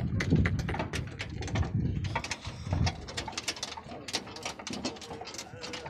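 A moving camel cart rattling and clattering: many quick, irregular knocks from its metal frame and chains. A low rumble underlies the first three seconds.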